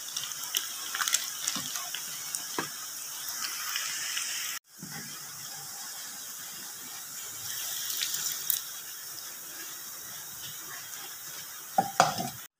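Small pieces of tongkol fish deep-frying in hot cooking oil, a steady sizzle full of crackles and pops. It breaks off abruptly about four and a half seconds in, then goes on as a smoother hiss, with a few sharp metallic clatters near the end.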